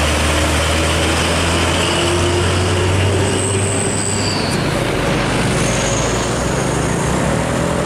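Hino FG diesel truck towing a loaded drawbar trailer, passing close by at road speed: a steady low engine rumble with heavy tyre and road noise, and a couple of brief faint high-pitched squeals midway.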